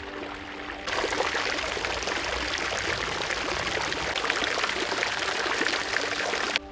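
Garden fountain's water jets splashing into a stone basin: a steady rush of falling water that comes in sharply about a second in and cuts off suddenly near the end. Soft background music with held notes plays at the start.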